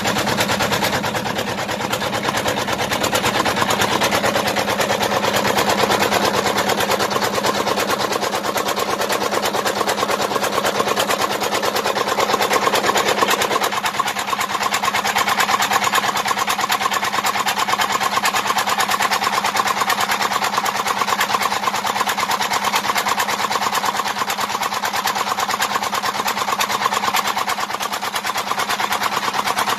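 Engine running steadily at a fast, even beat, its tone shifting slightly about 13 seconds in.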